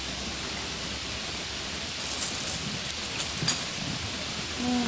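Steady hiss of heavy rain. From about two seconds in, short crinkles of a plastic carry bag being handled, with one sharp click.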